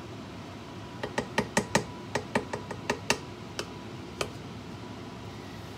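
Wooden spoon knocking against the sides of a stainless steel saucepan while stirring a thick curry: a quick run of a dozen or so sharp knocks starting about a second in, thinning out and stopping after about four seconds.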